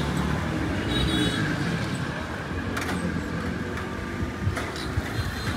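Busy street traffic: engines running and vehicles passing, with a short high beep about a second in and a few sharp knocks later on.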